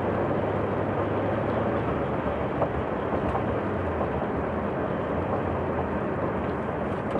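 Steady road and tyre noise with a low engine drone, heard inside a car's cabin while cruising at about 53 mph. The low drone eases off about four and a half seconds in.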